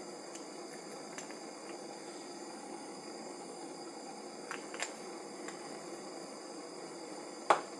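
Steady low hiss of kitchen background noise, with a few faint ticks and one sharp click near the end.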